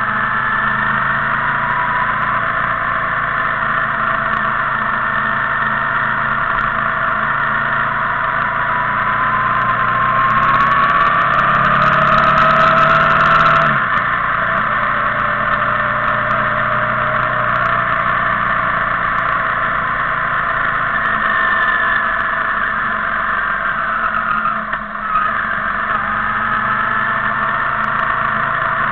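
Motorcycle engine running on the road. Its note climbs slowly for over ten seconds, then falls off sharply about halfway through. It dips briefly again near the end before climbing once more.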